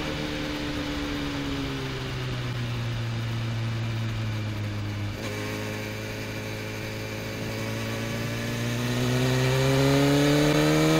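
Motorcycle engine recorded from a camera on the bike: the revs fall steadily for about five seconds as it slows into a bend, there is a short click about five seconds in, and then the revs climb steadily as the bike accelerates out of the corner.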